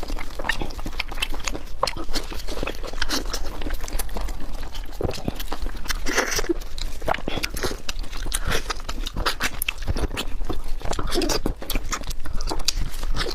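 Food being chewed and bitten, with many irregular clicks and smacks of eating and no pause.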